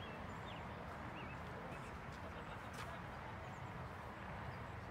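Steady outdoor background noise at a soccer field, mostly a low rumble, with a few faint, short high chirps scattered through it.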